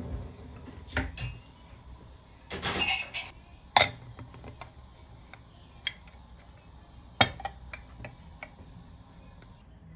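Porcelain plate and ceramic bowl knocking and clinking together as the plate is set upside down over the bowl to turn it out. There are a handful of separate sharp knocks a second or two apart, two of them louder than the rest.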